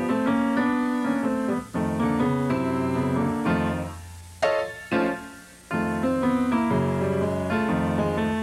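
Instrumental piano music, with a short break about halfway through marked by a couple of sharp hits.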